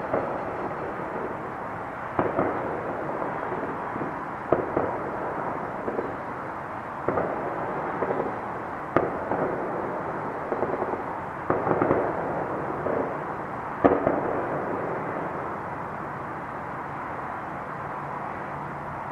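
Fireworks and firecrackers going off: about a dozen sharp bangs and pops at irregular intervals over a steady background noise. The loudest bang comes about two-thirds of the way in, and it goes quieter after that.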